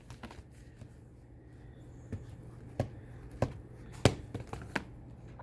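A picture book being handled: about five light, sharp clicks and taps spread through a quiet room.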